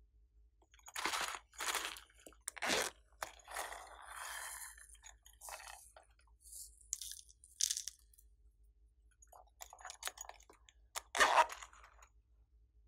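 Hands handling silicone toys and a handful of plastic sequins over a tray of slime: a scattered series of short crunching and rustling sounds, the loudest about eleven seconds in.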